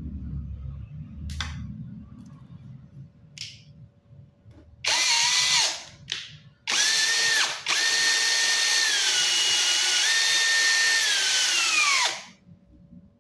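Electric hand drill running in three bursts, drilling into acrylic sheet. Its whine drops in pitch as the bit bites and sags again before it stops, after a few light clicks of handling.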